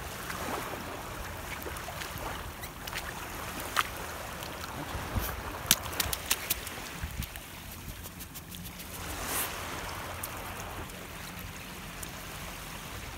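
Wind rumbling on the microphone over small waves washing at the shoreline, with a cluster of sharp clicks and splashes about four to six and a half seconds in.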